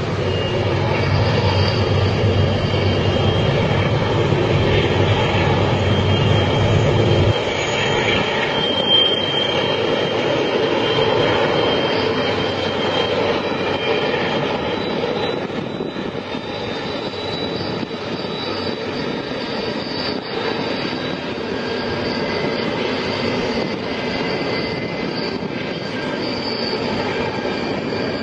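Freight train running past with a steady rolling rumble and thin, high squealing tones from the wheels. The deepest part of the rumble drops away about seven seconds in.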